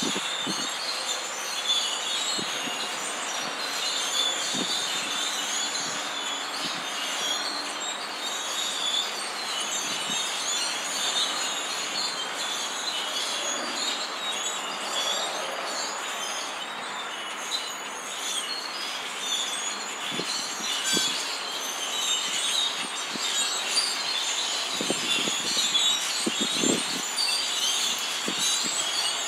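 A large flock of birds calling all at once in the trees, a dense continuous high-pitched chatter without a break.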